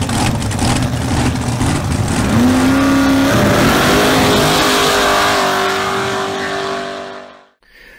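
Car engine revving: a dense engine sound climbs in pitch about two seconds in, steps higher a second later and holds at high revs, then fades out near the end.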